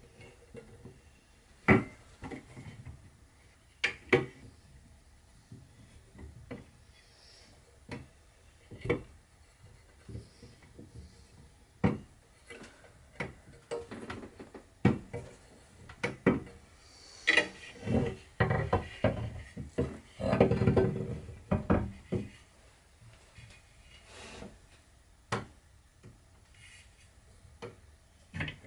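Scattered sharp knocks and clacks of aluminium bar clamps and cherry chair parts being handled and set on a wooden workbench during a glue-up, with a longer stretch of rubbing and clattering a little past the middle.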